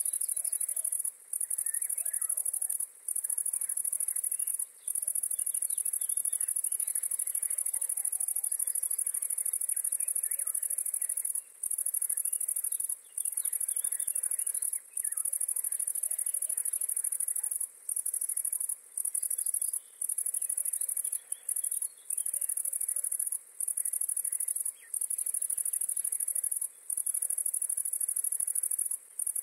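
A bush-cricket stridulating: a continuous, very high-pitched buzzing song broken by short gaps at irregular intervals of one to three seconds.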